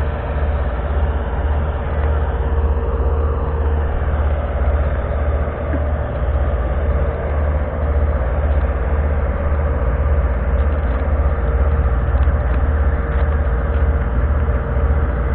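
A heavy engine idling steadily: a low, evenly pulsing rumble with a steady hum above it.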